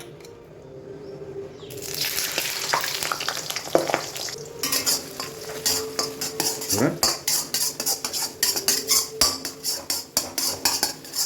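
Beaten eggs frying in hot mustard oil in a kadai, sizzling as the hiss rises about two seconds in. A spatula then scrapes and stirs them against the pan in quick, regular strokes.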